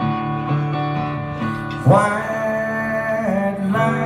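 Live acoustic guitar strummed with a man singing a long held note that slides in about two seconds in, in the closing bars of a country song.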